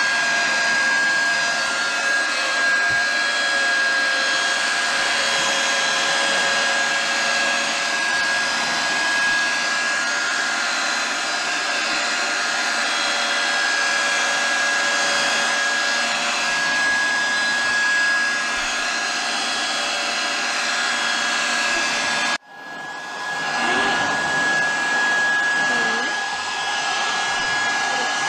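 Battery-powered mosquito aspirator running, its small fan drawing air with a steady whoosh and a high whine as it sucks mosquitoes off the mesh of a holding tent. The sound cuts out sharply about 22 seconds in and comes straight back.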